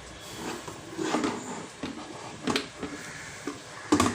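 A few scattered clicks and knocks, the loudest near the end, as parts of an opened electric kettle are handled and taken off.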